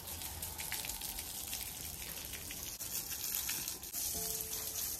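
Garden hose spraying a jet of water onto a water buffalo's hide, a steady hiss and splash of water while it is being bathed.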